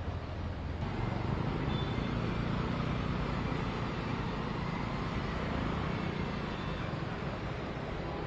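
Motor vehicles driving through floodwater on a city street: engines running under a steady hiss of water spray from the wheels.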